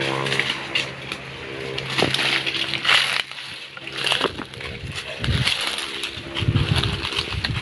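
Leaves and twigs rustling and crackling as a long bamboo pole is pushed and jabbed up through a tree's branches, over a steady low hum.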